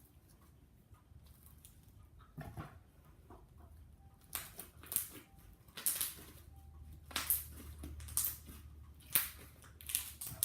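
Slime being squished and poked by hand, giving a run of short, sharp, crackly squelches about once a second from about four seconds in.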